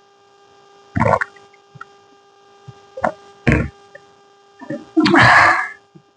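Mouth sounds of someone eating: a few short smacking or slurping noises, then a longer, louder breathy sound near the end.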